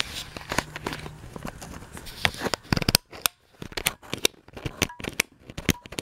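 Handling noise from a ceiling fan and its parts being picked up and moved around: a quick, irregular run of clicks, taps and rustles, busier for the first three seconds and sparser after. A low steady hum is also there and stops about a second in.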